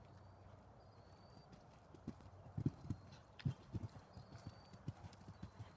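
Hoofbeats of a ridden horse on sand arena footing: dull, irregular thuds that grow louder about two seconds in as the horse comes close.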